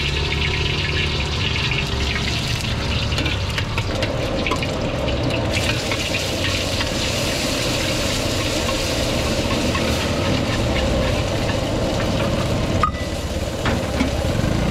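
Egg and rice stir-frying in a wok: steady sizzling, with the metal ladle scraping and knocking against the wok and the gas burner's low, steady rumble beneath. There is one sharper knock near the end.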